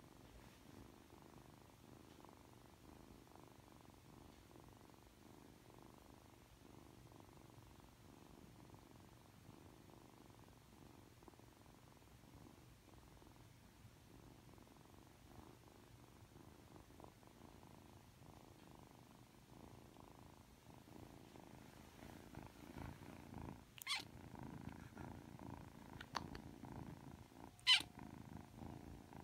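Ragdoll kitten purring steadily and faintly, the purr growing louder about two-thirds of the way through. A few sharp clicks near the end, the last one the loudest.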